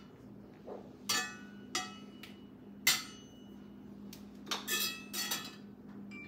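Glass jars and metal utensils clinking and knocking as they are handled on a kitchen counter: a handful of sharp, ringing clinks, several close together near the end, over a steady low hum.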